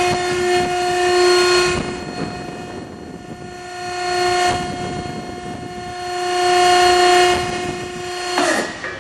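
Load King 7230 vertical baler's hydraulic power pack running with a steady pitched whine, typical of the pump working under load as the platen cycles. The whine fades out about two seconds in, comes back about four and a half seconds in, and cuts off abruptly near the end.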